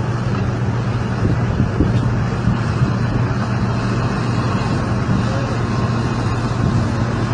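A heavy vehicle's engine running steadily, a constant low hum with a rough rumble over it.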